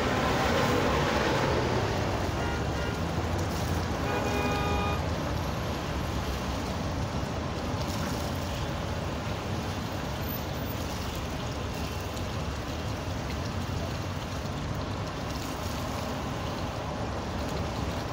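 Street traffic: vehicles passing close by with a steady rumble, loudest in the first two seconds. A brief horn sounds about four seconds in.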